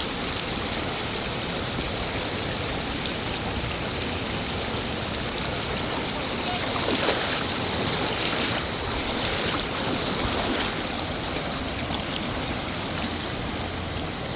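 Shallow river water flowing steadily over rocks, growing a little louder with some stronger rushes and splashes in the middle.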